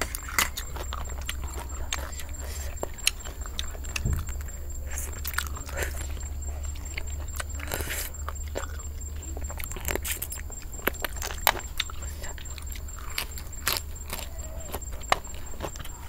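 Eating shellfish by hand from a spicy seafood salad: scattered sharp clicks of shells being picked up, knocked and cracked, with chewing.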